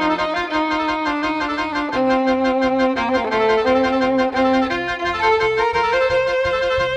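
Background music with a fiddle playing the melody over a steady rhythmic accompaniment.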